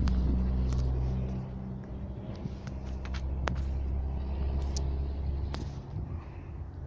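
ChME3 shunting locomotive's six-cylinder diesel engine running with a steady low hum, louder for about the first second and a half and then lower, with a few sharp clicks over it.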